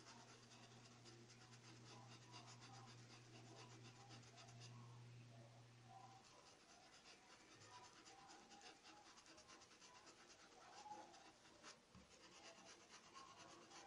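Faint, scratchy rubbing of a paintbrush worked back and forth over a cotton towel, blending fabric paint in many short strokes. A low steady hum stops about six seconds in.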